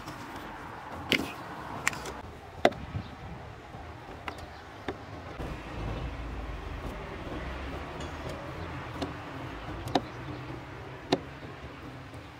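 A series of sharp clicks and taps from a screwdriver and hands working the plastic clips and fasteners of an Audi A8 D3's air filter box, about seven in all and spaced irregularly. A low rumble runs under them in the middle.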